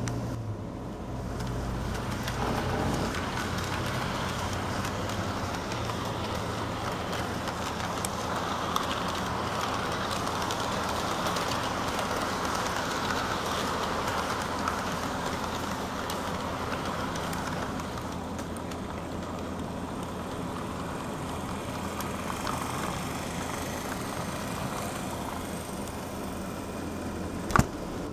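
HO scale model passenger train rolling past on the track: a steady rumble of metal wheels on the rails, a little louder in the middle as the cars pass close. A single sharp click near the end.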